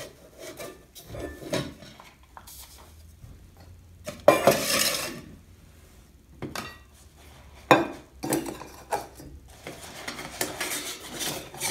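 TOAKS titanium mugs and a small titanium wood-burning stove being handled on a wooden table: irregular light metallic knocks and clinks as the stove is pulled out and slid into a mug, with a brief rustle or scrape a little over four seconds in.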